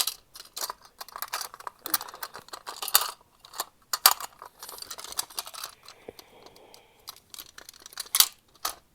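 Plastic tabs of a push button in a Simplex fire alarm pull station clicking, snapping and scraping as they are squeezed and worked out of their holes. The sound is a rapid, irregular run of clicks and crackles.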